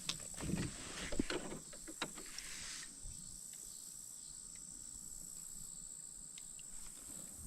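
Steady high-pitched insect chorus, cricket-like, running throughout, with a few sharp knocks and a rustle in the first three seconds, then only faint ticks.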